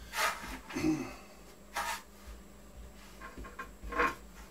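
Scattered handling sounds of hand work inside a plywood cabinet: a few brief knocks and rustles, a second or two apart.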